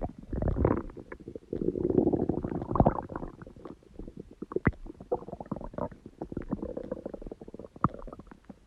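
Human stomach growling and gurgling in irregular bursts, the loudest in the first three seconds, trailing off into quieter bubbling pops and clicks.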